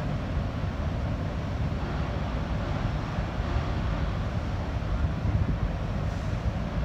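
Steady low rumble of a harbour tug's engines, mixed with wind buffeting the microphone.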